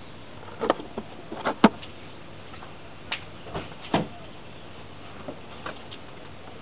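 Irregular light clicks and knocks, about a dozen, of parts and tools being handled, with a sharper knock about a second and a half in, over a steady low hiss.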